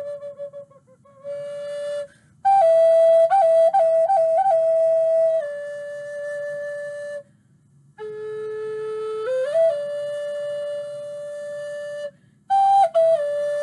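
Wooden end-blown flute playing a slow, calming melody of long held notes with quick ornamental flicks between them, broken by short pauses for breath.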